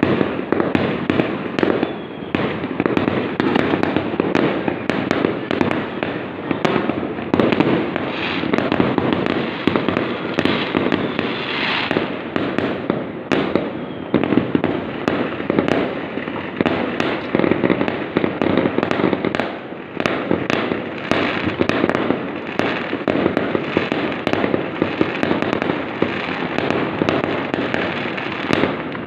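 Fireworks going off in a dense, unbroken barrage of crackling bangs and pops.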